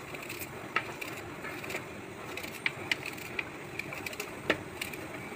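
Kitchen knife slicing through a raw red onion held in the hand: irregular crisp cutting clicks, a few scattered across the seconds, over a faint steady hiss.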